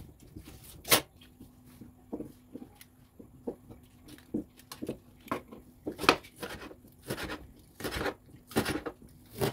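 Kitchen food-prep handling sounds: irregular sharp knocks and clicks with rustling and scraping between them, under a faint steady hum.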